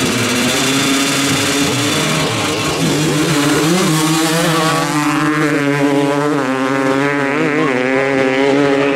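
Two 250cc two-stroke dirt bikes revving hard at the start line and launching in a drag race, engines held at high revs as they pull away, the pitch wavering and climbing with throttle and shifts.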